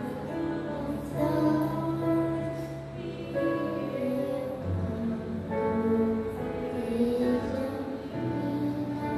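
A young girl singing a gospel song into a microphone over an instrumental backing track, whose held bass notes change every few seconds.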